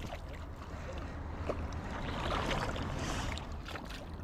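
River water running, with wind buffeting the microphone in a low rumble and a few faint ticks.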